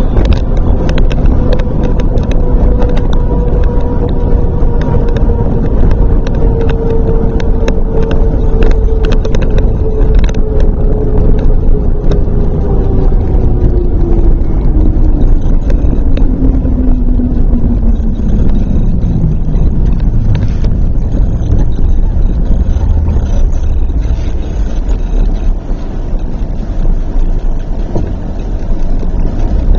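A vehicle driving on concrete runway pavement makes a steady engine and tyre noise with occasional light knocks. From about twelve to twenty seconds in, a whine falls steadily in pitch and fades out as the vehicle slows down.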